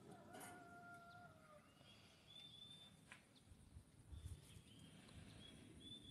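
Faint birds calling: short high chirps repeated throughout, and one longer, steady call lasting about a second near the start. A couple of light clicks.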